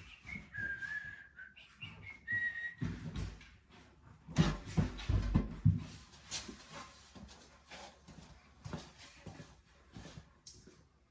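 Knocking and clattering of workshop handling, with a run of heavy thumps about halfway through, the loudest part. At the start come a couple of seconds of high, thin, held whistle-like tones.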